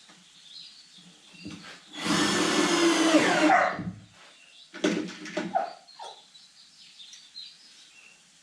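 Power drill running for about a second and a half, turning a screw in the toolbox, followed a second later by a few sharp knocks and clunks.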